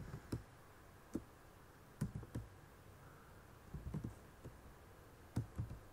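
Computer keyboard keys being pressed: scattered single keystrokes and short runs of a few clicks, with pauses between them.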